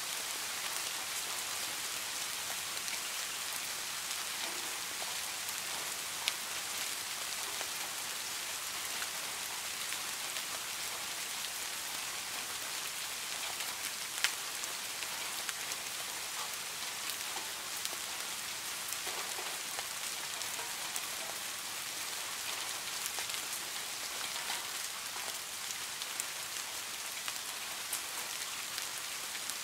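Steady rain falling on a garden pond, a dense even hiss of drops hitting the water, with two louder single drops about six and fourteen seconds in.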